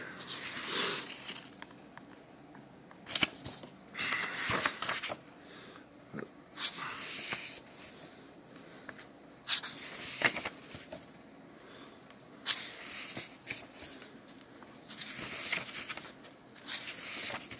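Pages of a book being turned and handled: short, separate rustles of paper every second or two, with quiet gaps between.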